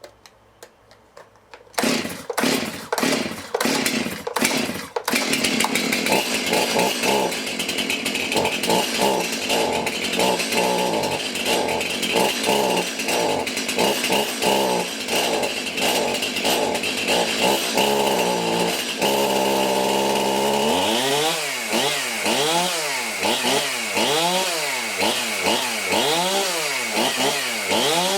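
Brand-new Stihl MS 271 two-stroke chainsaw catching on a pull about two seconds in, then running rough and stuttering for many seconds before settling briefly, then revved up and down about once a second. The uneven running is kind of weird for a new saw; the low-speed jet needs a little tweaking.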